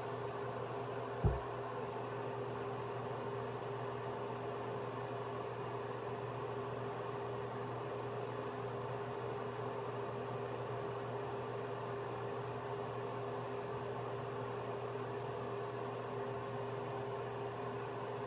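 Steady room hum with a faint hiss and a few held low tones, like a running fan or appliance. One short low thump about a second in.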